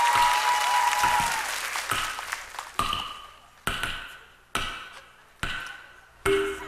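Audience applause dying away, then the opening of the dance music: single struck, ringing notes about once a second, each decaying before the next.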